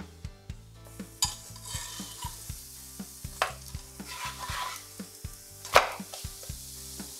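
Pizza dough frying in a hot non-stick frying pan, sizzling, with two sharper hits, the louder one about six seconds in. A steady beat of background music runs underneath.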